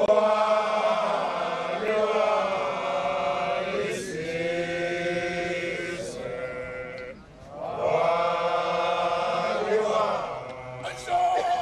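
A group of voices chanting together in long drawn-out notes. The chant breaks off briefly about seven seconds in, then starts again.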